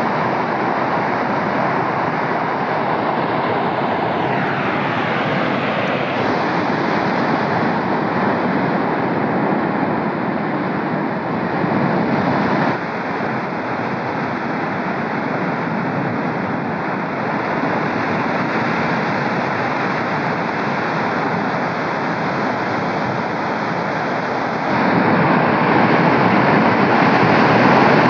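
Cumbre Vieja volcano erupting: a steady, noisy rush from the vent with no pauses, changing abruptly in level and tone three times.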